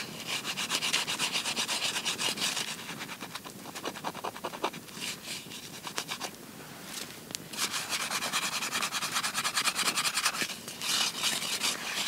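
A camp plate being scrubbed clean by hand with snow, with rapid rubbing and scratching strokes. There are two long spells of fast scrubbing, with a few slower scrapes between them.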